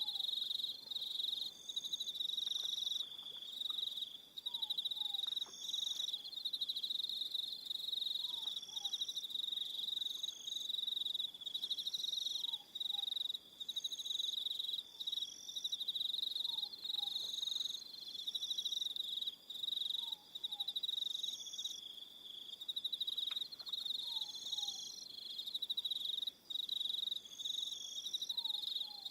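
Evening crickets chirping in a steady, fast-pulsing trill, with other insects joining in on-and-off higher trills. Underneath, a faint short falling two-note call repeats about every four seconds.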